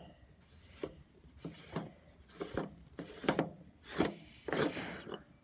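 Fuel tank cap on a Ford F-700 truck being worked open with a series of scraping clicks, then, about four seconds in, a hiss of about a second as built-up pressure escapes from the tank.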